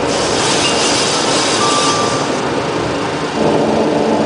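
Steady jet engine and airflow noise on the flight deck of a Boeing 737, with a strong hiss. About three and a half seconds in, it gets louder and takes on a low, steady hum.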